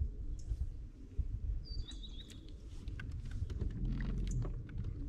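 Steady low rumble of wind and water around an open boat, with a short stepped bird call about two seconds in and a few light knocks.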